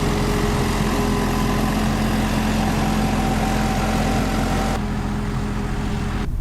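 Potato-harvesting machinery running steadily: an engine hum with steady whining tones over mechanical noise. The high hiss drops away near the end.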